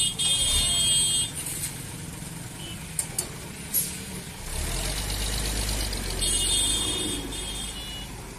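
Road traffic crossing a level crossing: a truck's engine rumbles steadily past through the second half. A high-pitched ringing signal sounds at the start and again about six seconds in, with a few sharp clicks in between.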